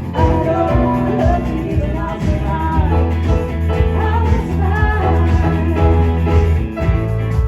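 A live band playing a song, a voice singing over a steady bass line.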